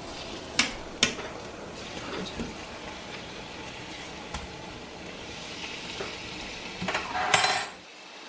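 Chicken breasts frying in a non-stick pan with a steady sizzle. A utensil clicks sharply against the pan twice in the first second as the pieces are turned, and a louder, noisier burst comes near the end.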